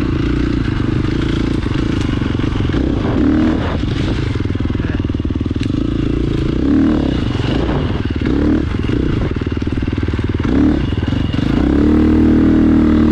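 2017 KTM 350 XC-F dirt bike's single-cylinder four-stroke engine running while being ridden, the revs rising and falling several times, with a longer, harder pull near the end.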